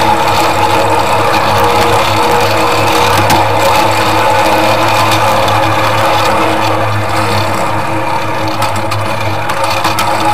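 Miniature ride-on train running steadily along its track, heard from on board: a constant motor hum and whine with scattered faint clicks from the wheels on the rails.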